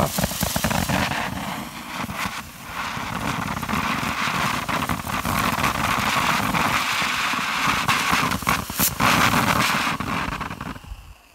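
Molten Madness consumer fountain firework spraying sparks with a steady hiss and dense crackling, dipping briefly about two and a half seconds in. It cuts off shortly before the end as the fountain burns out.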